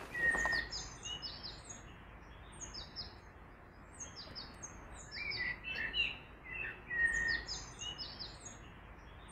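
Small songbirds chirping and singing: short, high twittering phrases that come again every second or two, over faint low background noise.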